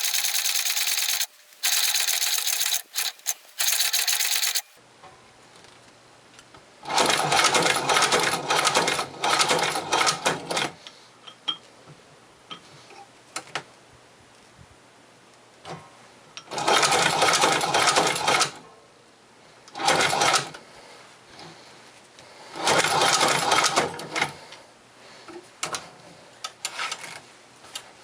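Loud continuous scraping noise with brief breaks for the first few seconds, then cut off. After that, a Chinese shoe patcher leather sewing machine clatters through short runs of stitches, each lasting one to four seconds, with pauses between runs.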